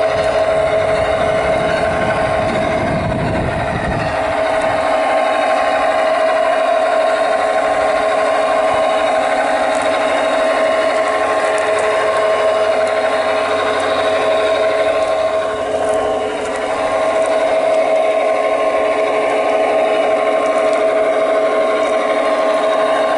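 ESU sound decoder in a G-scale GP9 model locomotive playing its diesel engine sound through the loco's speaker as it runs along the track: a steady drone with a few held tones.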